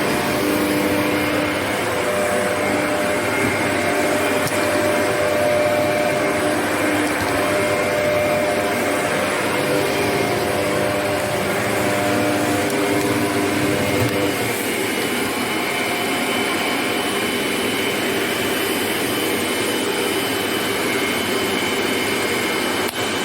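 Shark NZ801UKT upright vacuum cleaner running steadily: a constant rush of suction with a motor whine whose tones shift slightly as it works.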